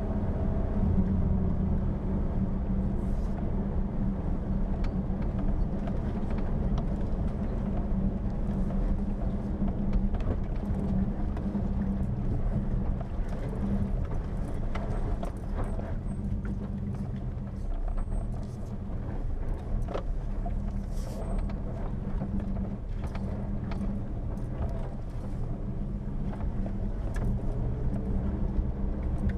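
Jeep Wrangler driving a rough dirt track: a steady low engine drone, with scattered small clicks and knocks.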